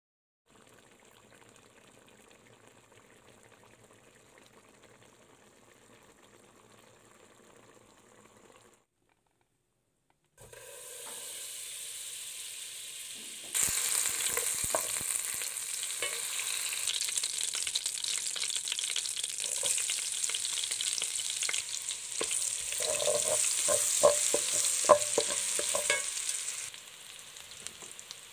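Butter sizzling and foaming in a non-stick wok, getting louder a few seconds after it starts, with a wooden spatula scraping and clicking against the pan during the second half.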